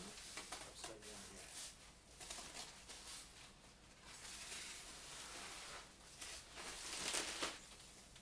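Packaging being handled and pulled apart: irregular rustling and tearing, loudest about seven seconds in.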